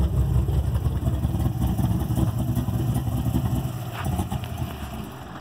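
Chevrolet Corvette Z06's 7.0-litre V8 running at idle, a deep, choppy exhaust note. It gets quieter over the last second or so.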